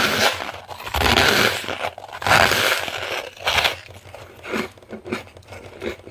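Freezer frost being bitten and chewed close to the microphone: several loud crisp crunches in the first three seconds, then a shorter one and softer scattered crackles of chewing toward the end.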